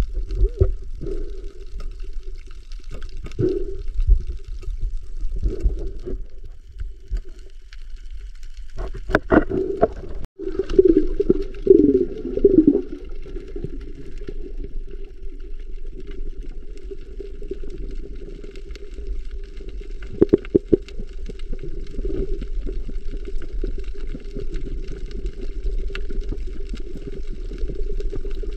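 Muffled underwater sound picked up through a camera housing: water sloshing and gurgling as a steady low rumble. A few sharp knocks come about nine seconds in and again about twenty seconds in.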